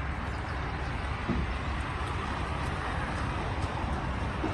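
Diesel engine of a livestock transport truck idling, a steady low running noise.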